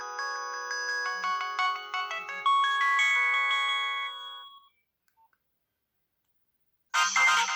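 Nokia 6030 mobile phone ringtones: a polyphonic ringtone melody with several notes sounding at once fades out about four and a half seconds in. After about two seconds of silence, a different, denser ringtone starts abruptly.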